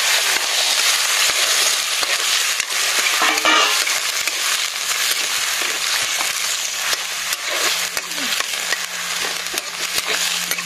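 Potato sticks in a hot iron wok sizzling steadily after water is poured into the hot oil, while a metal ladle stirs them, scraping and clicking against the wok.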